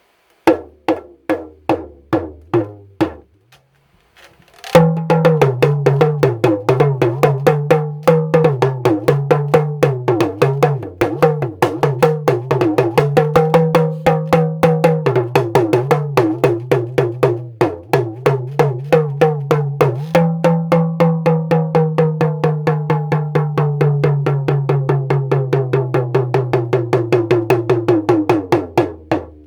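Handmade 6x16 lunga, a Ghanaian hourglass talking drum, struck with a stick. A handful of single strokes come first, then a brief pause. Then comes a fast, steady stream of strokes whose pitch rises and falls as the tension cords are squeezed and released, sagging gradually lower near the end.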